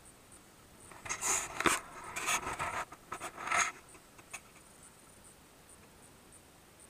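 Close dry rustling and scraping of clothing and grass against the microphone as the camera wearer moves through the field. It runs in uneven bursts from about a second in until nearly four seconds, then gives way to a couple of faint clicks.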